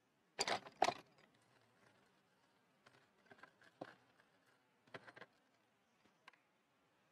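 Small pottery hand tools being handled and knocked together while searching for a scoring tool: two sharp clicks about half a second and just under a second in, then a few faint scattered clicks.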